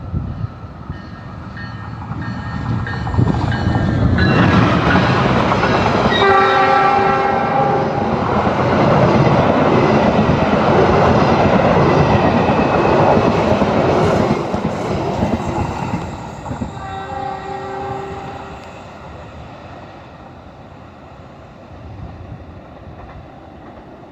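A train passes, its rumble and wheel clatter building to a peak mid-way and then fading. Its multi-tone horn sounds faintly near the start, in one long blast of about two seconds about six seconds in, and again more briefly about seventeen seconds in.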